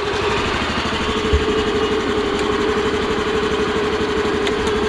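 Honda Activa 125 scooter's single-cylinder four-stroke engine idling steadily.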